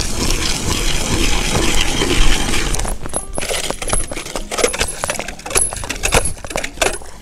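Hand-cranked ice auger drilling through lake ice. For about three seconds it makes a continuous grinding scrape, then a quick string of sharp crunches and clinks of ice chips as the blades break through and water comes up into the hole.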